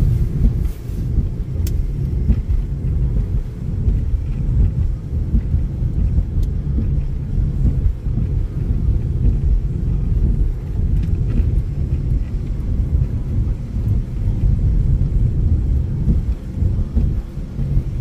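Steady low rumble of a car driving, heard from inside the cabin: tyre and engine noise on a wet road.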